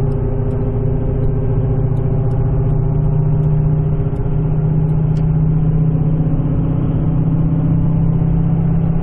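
Car interior at highway speed: steady road and tyre rumble with a continuous low droning howl from a failing wheel bearing, which comes on above about 60 mph.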